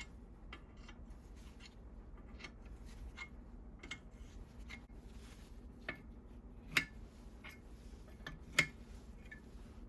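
Scattered light metallic clicks and taps of hand tools working on the old Landis leather splitter's metal parts during disassembly, loosening its fittings. Two sharper, louder clinks come about 7 and 8.5 seconds in.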